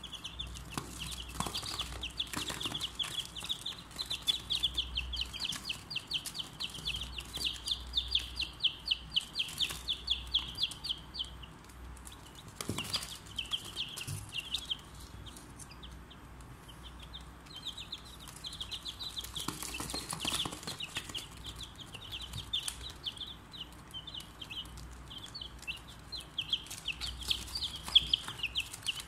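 Four-day-old chicks peeping: rapid, high-pitched chirps several a second, almost unbroken, thinning out for a few seconds around the middle before picking up again. A couple of brief scuffs or knocks in between.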